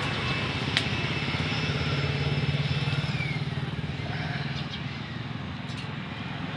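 An engine running with a steady low hum, loudest about two to three seconds in and easing off afterwards, with a couple of faint sharp clicks.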